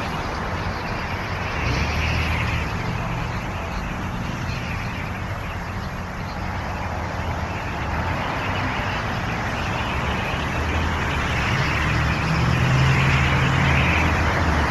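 Steady road traffic noise: vehicle engines rumbling with tyre noise, swelling about two seconds in and again near the end.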